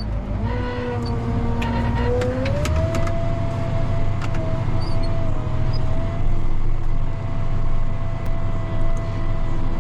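Crop sprayer running, heard from inside its cab: a steady engine rumble with a whine that rises in pitch about two and a half seconds in and then holds level.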